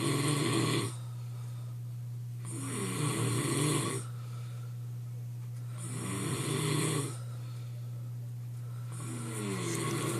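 A man snoring in his sleep, one snore about every three seconds, each lasting about a second, over a steady low hum.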